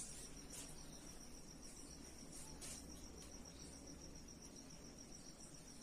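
A cricket trilling steadily, a faint, high, evenly pulsing note over quiet room tone.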